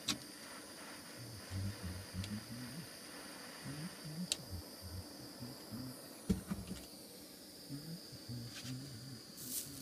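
Propane torch flame hissing steadily as it heats a copper pipe and brass valve joint for soldering, with uneven low rumbling and a few faint clicks.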